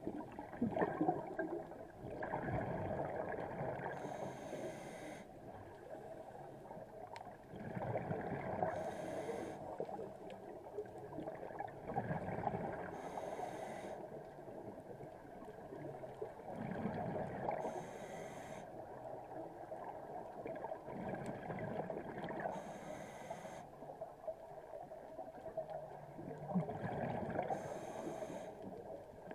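Scuba diver breathing through a regulator underwater: a short hiss of air on each inhale, then a longer gurgling rush of exhaled bubbles. Six breaths, about one every four to five seconds.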